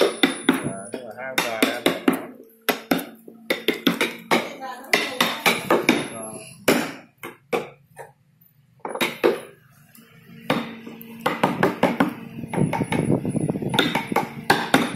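Mallet striking a carving chisel into a wooden relief panel: quick runs of sharp knocks, pausing from about seven to ten seconds in.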